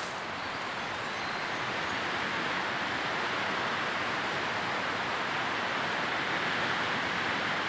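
Steady, even rushing noise of the pink-noise kind, strongest in the middle range. It has no separate rustles or crackles in it.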